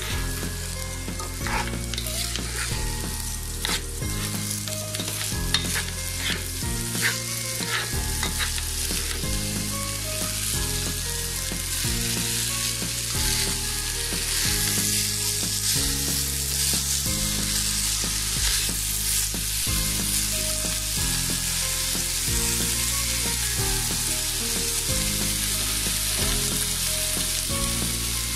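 Washed kalijira rice sizzling as it is fried in ghee, with a spatula scraping and clicking through it against the pan, mostly in the first several seconds. Low background music plays underneath.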